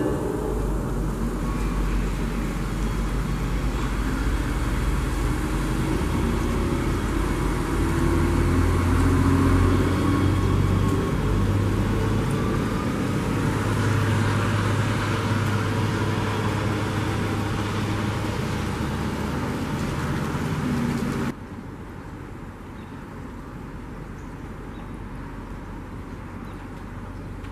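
NJ Transit GP40PH-2B diesel locomotive running steadily as its train approaches through switches in heavy rain, a low engine drone under the steady hiss of rain, getting a little louder as it nears. About 21 seconds in the sound drops abruptly to a quieter, steady rumble as another train comes on cab car first.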